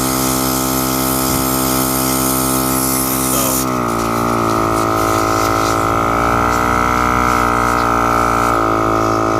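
VIAIR 85P 12-volt portable air compressor running, inflating a car tire, with a steady motor hum. About four seconds in, its pitch sags and a sharper whine comes in over it; both hold until near the end, when the pitch recovers.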